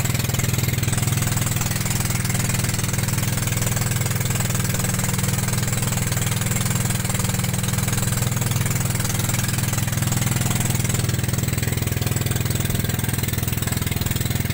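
Outrigger fishing boat's engine running steadily under way, a constant low chugging with a steady hiss of noise over it.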